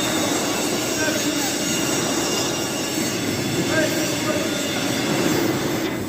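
MIG (semi-automatic) welding arc crackling and hissing steadily.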